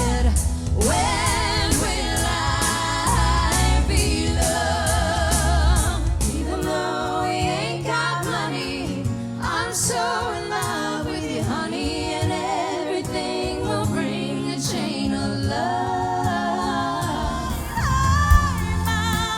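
A soft-rock song with singers in harmony over band backing, the voices held with vibrato. The bass drops out about a third of the way in and comes back near the end.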